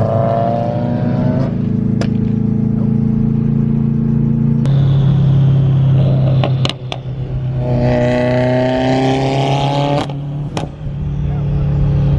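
Car engine running under load, its pitch rising as it accelerates about eight seconds in. The throttle eases off briefly twice, about seven and about ten and a half seconds in, and there are several sharp cracks.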